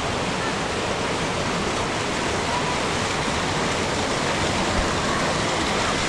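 Waterfall pouring: a steady, unbroken rush of falling water.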